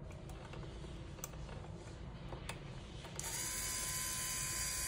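Faint clicks of handling, then about three seconds in a motorized ball valve's electric actuator starts running, a steady motor-and-gearbox whine with one even tone, as it drives the valve to the open position.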